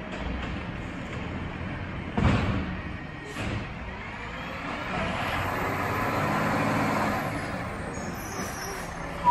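Peterbilt 520 McNeilus ZR garbage truck running down the street, with a sudden loud blast about two seconds in. Its engine revs up as it pulls forward from about five seconds in.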